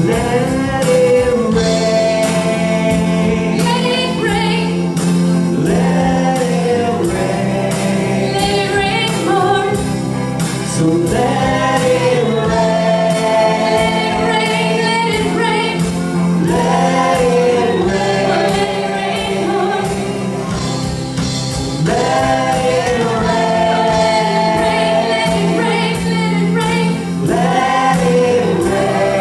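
Live worship band playing a song: several voices singing, women in front, over electric guitar, sustained band chords and a steady beat.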